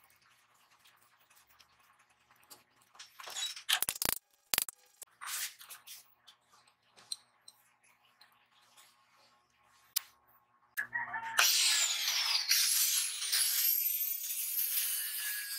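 Light metallic clicks and clinks as small steel flat-bar pieces are handled at a steel bench vise. About eleven seconds in, an angle grinder starts and grinds against a steel shaft, its whine shifting in pitch under load.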